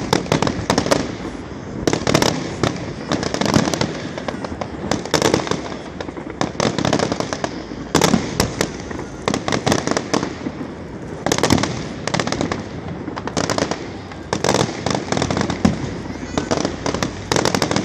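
Fireworks display: aerial shells bursting in quick, irregular succession, with clusters of rapid crackling bangs between the louder booms.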